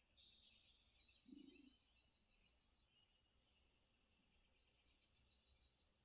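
Faint songbird calls played through a TV speaker: two runs of rapid, high repeated chirps, the second starting near the middle. A short low sound comes about a second in.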